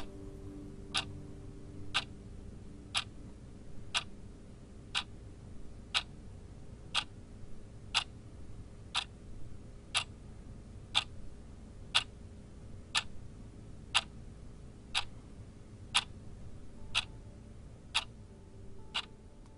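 Clock ticking steadily, one sharp tick each second, over a faint steady hum.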